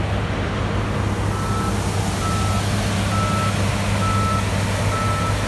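Farm machinery's reversing alarm beeping about once a second, starting about a second in, over the steady drone of a running engine.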